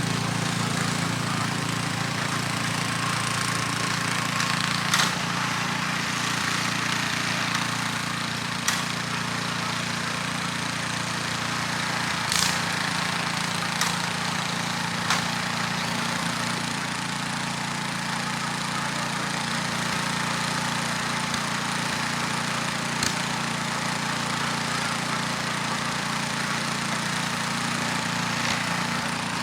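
Snowblower engine running steadily under load while clearing snow, with a few short sharp clicks scattered through.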